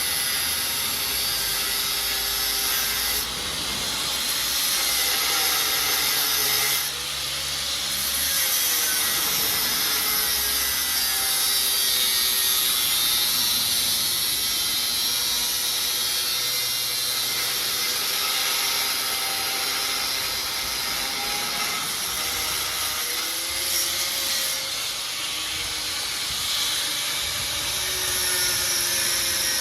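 Angle grinder cutting through the motorcycle's metal exhaust pipe to shorten it. Steady abrasive hiss, with the motor's whine dipping and recovering in pitch several times as the disc bites.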